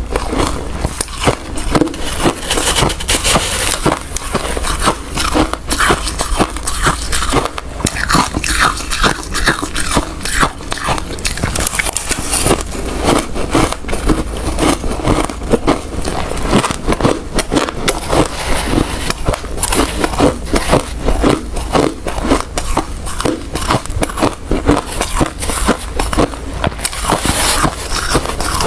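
Ice being bitten and chewed close to the microphone: a continuous run of rapid, crisp, irregular crunches.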